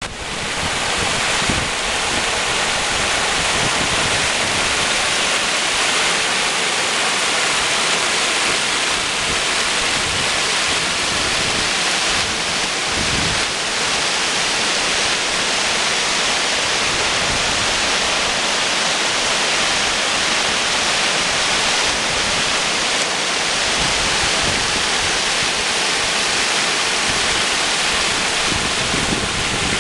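Mountain stream rushing over rocks, a steady loud rush of water.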